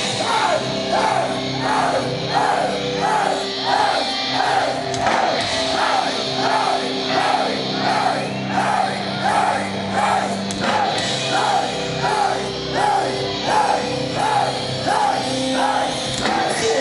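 Live hardcore punk band playing loud, distorted guitars and bass with vocals over a steady pulsing beat.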